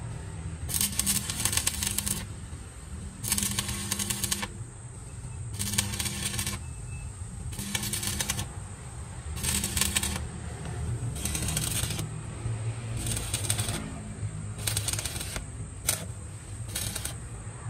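Stick (arc) welding on a steel truck chassis rail to close a crack: the arc crackles and sizzles in about ten short runs of around a second each, with brief pauses between strikes. The runs get shorter toward the end. A steady low hum runs underneath.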